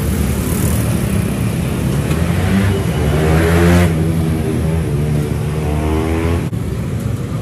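A motorbike engine passing close by, over a steady rumble of street traffic. It grows louder and higher in pitch, is loudest about halfway through, then falls away lower.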